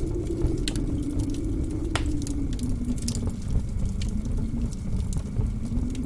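Wood fire crackling with scattered sharp pops, one stronger about two seconds in, over blizzard wind howling in a low wavering tone that sinks and then rises again near the end.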